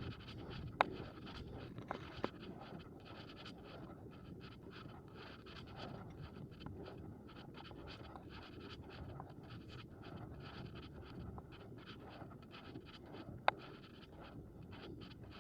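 Loaded gear wagon rolling along a park path, its wheels giving a steady rough scraping dotted with small clicks and rattles. A sharp click comes about a second in and another near the end.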